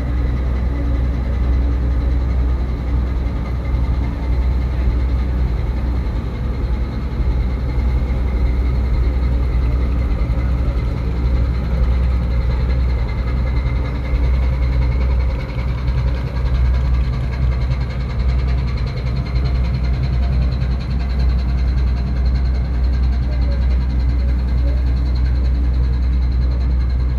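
A small tanker ship's diesel machinery running steadily: a loud, even low drone with a thin steady whine above it.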